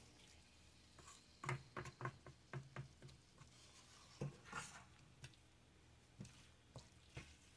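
Faint scraping and light clicks of a spoon against a pot as seafood rice is stirred, a quick run of them in the first few seconds, then a few more spaced out.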